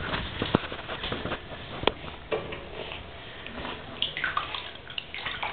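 Water splashing and trickling in a bathtub as a pug puppy is washed, with a few sharp knocks in the first two seconds.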